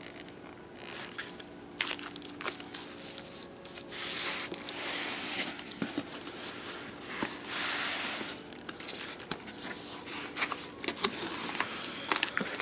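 A cardboard shipping box being pulled open by hand: flaps torn loose from packing tape, with irregular bursts of tearing, scraping and rustling cardboard and a few sharp clicks.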